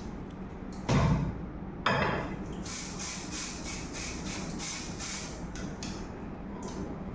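Two loud knocks, then a run of short hissing spray bursts from an aerosol can of magnetic particle ink during a magnetic particle test, over a steady low hum.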